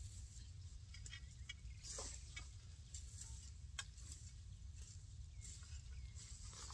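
Plastic mesh netting of a water-deer fence rustling as it is handled and pulled against a metal post, with scattered light clicks and scrapes, the clearest about two seconds in, over a low steady rumble.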